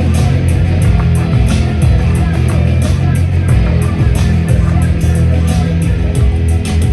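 Rock band playing live, guitar and bass over drums with cymbal hits keeping a steady beat.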